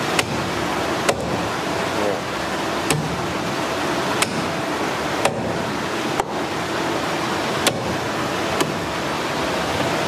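Heavy cleaver chopping through a large grouper on a plastic chopping board: about eight sharp knocks at uneven intervals, roughly one a second, over a steady background hiss.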